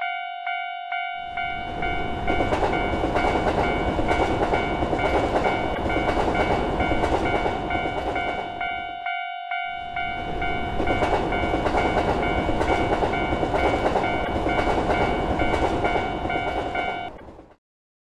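Japanese railway level-crossing warning bell dinging about three times a second, with the noise of two trains passing through: the first from about a second in to about nine seconds, the second, a Shinkansen bullet train, from about ten seconds in. The bell and the train noise stop together shortly before the end.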